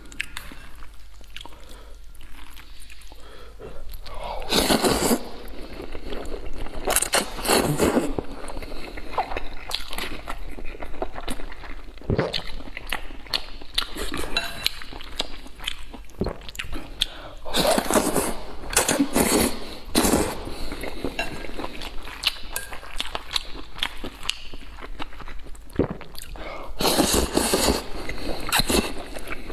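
Close-miked eating: chewing and smacking on braised pork belly and wide flat noodles, with several louder slurps of noodles, one near the end.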